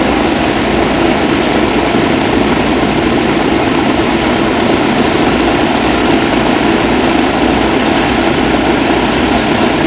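Vintage warbird's radial piston engine idling with the propeller turning, a loud steady drone with no change in pitch.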